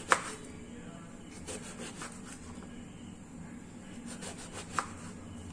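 Kitchen knife slicing a round eggplant into rounds on a plastic cutting board: quiet sawing strokes through the flesh, with a sharp tap of the blade hitting the board just after the start and again near the end, and a few fainter ticks in between.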